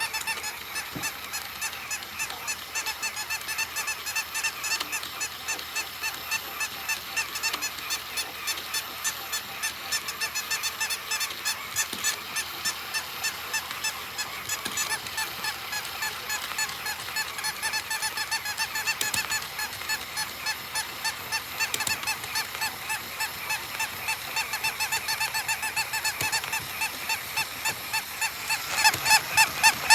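A toy makes a rapid, even series of short honking squeaks, about three a second, growing louder near the end.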